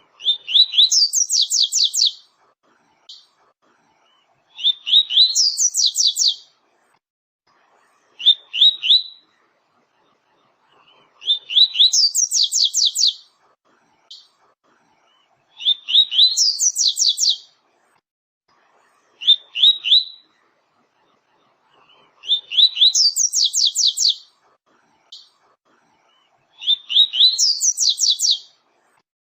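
Double-collared seedeater (coleiro, papa-capim) singing the 'tui-tui' song: loud, high phrases repeated every three to four seconds. Each phrase is a few rising notes followed by a fast trill of higher notes, and a few phrases stop after the opening notes.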